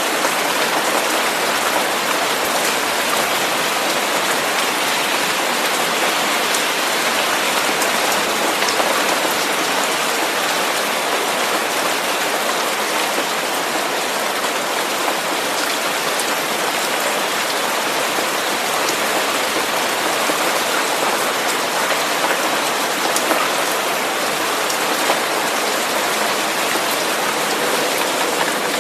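Steady rain-like white noise: an even hiss across the range, with faint scattered ticks like drops and no change in level.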